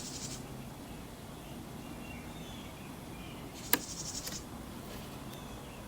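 A sharp small click about three and a half seconds in, with a fainter one just after, from freeing a laptop keyboard's ribbon cable at its flip-up ZIF connector, over a faint steady background.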